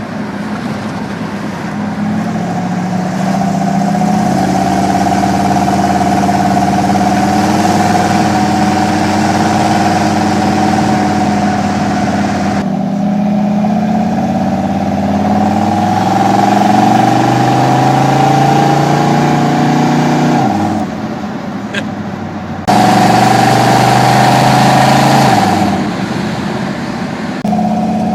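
The engine of a '37 Dodge rat rod running on three two-barrel carburetors, loud, held at raised revs and revved up and down several times. In the second half the revs fall away, then jump up sharply, drop back and pick up again near the end.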